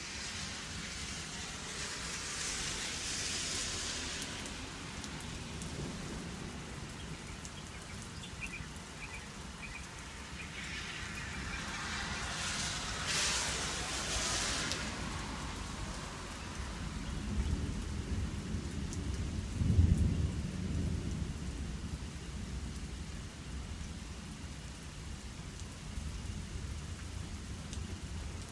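Steady spring rain falling, its hiss swelling twice, with a low rumble of thunder rolling in about two-thirds of the way through.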